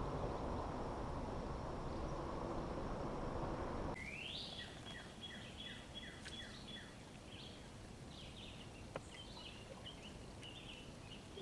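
A steady hiss that cuts off sharply about four seconds in. Songbirds then sing over quiet river surroundings, with a run of short falling whistles and higher twittering chirps.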